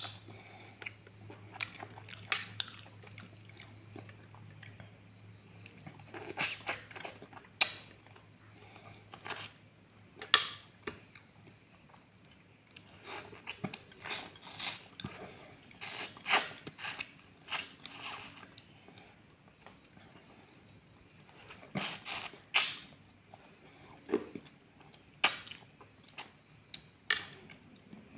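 Close-up eating sounds of a person eating boiled pork and rice by hand: wet chewing and lip smacks, heard as irregular sharp clicks every second or two.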